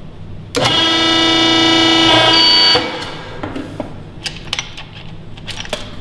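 The MobileCrimp crimper's buzzer sounding one steady horn-like tone for about two seconds, signalling that the crimp is complete. A few light clicks and knocks of handling the fitting follow.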